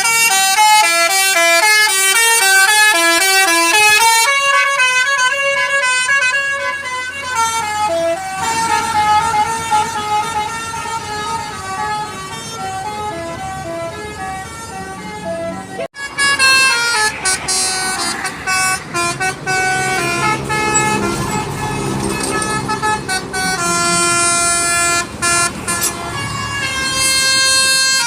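Telolet basuri multi-tone bus horns playing quick melodies, note after note. The tune breaks off suddenly about halfway through and another horn melody starts.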